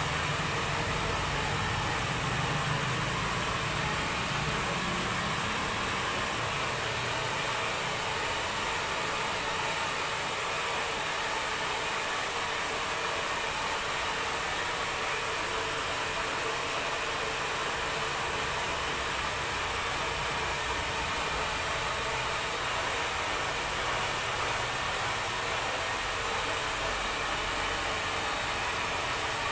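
Handheld hair dryer blowing steadily: a constant, even rush of air.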